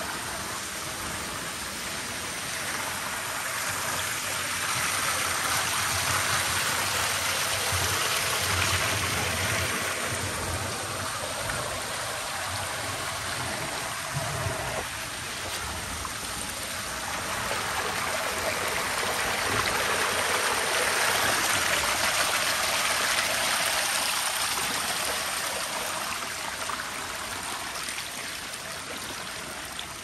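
Rushing water of a forest waterfall and its stream: a steady hiss that grows louder and fades again twice.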